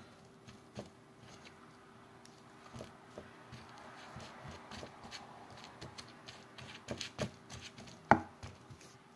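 Scattered soft clicks, taps and light scrapes of eating utensils handling a hot pot pie in its dish, with one sharper click a little after eight seconds.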